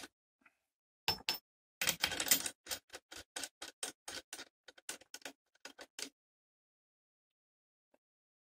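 Clear plastic sheet being handled, crinkling in a run of sharp, irregular crackles that stop about six seconds in.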